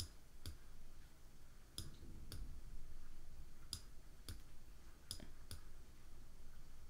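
Computer mouse button clicks in pairs, each press followed by a release about half a second later, as letters are drawn with an on-screen pen tool; about eight clicks in all.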